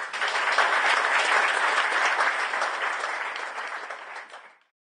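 Audience applauding, many hands clapping together; the applause fades and cuts off near the end.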